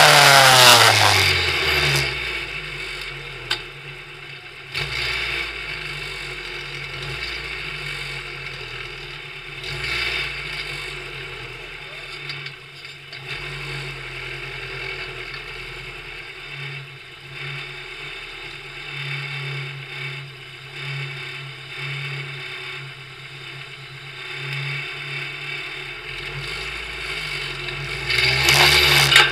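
Race car engine heard from on board: it comes off high revs with a falling pitch in the first couple of seconds, then idles with a low, uneven note while the car sits stopped, and revs up loudly again near the end as it pulls away.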